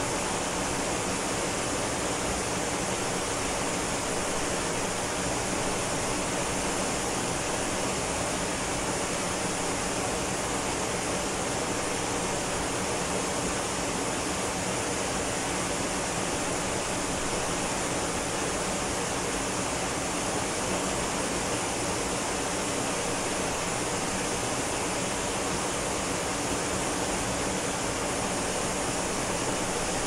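Ōko Falls, a tall waterfall, pouring into its plunge pool: a steady, unbroken rush of falling water.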